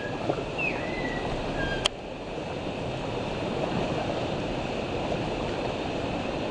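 Shallow, fast stream rushing and rippling over stones at water level, a steady wash of water noise. A few short whistles sound in the first two seconds, and a single sharp click comes just before two seconds in.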